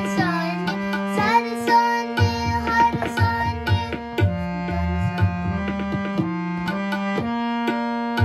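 NAGI harmonium playing a Sikh shabad in Raag Aasa, with a boy's voice singing over it for the first few seconds. Harmonium and a steady tabla beat then carry on alone.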